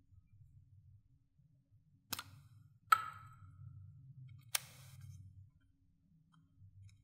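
Three sharp plastic clicks as a plastic lipstick tube is uncapped and handled; the middle click is the loudest and rings briefly.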